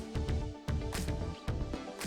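Background music with a steady beat: a bass line and drums under held synth chords.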